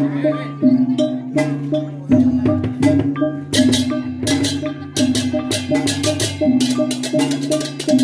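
Balinese gamelan playing for a barong dance: a fast repeating pattern of low, pitched gong-chime notes under quick metallic clashes that grow much denser about three and a half seconds in.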